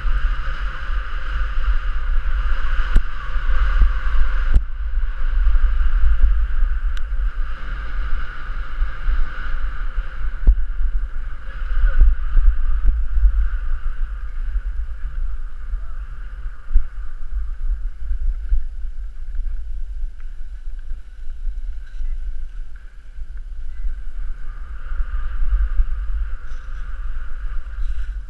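Wind buffeting the microphone of a skier's point-of-view camera, a loud low rumble throughout, over the steady hiss of skis sliding on packed snow, with a few sharp clicks.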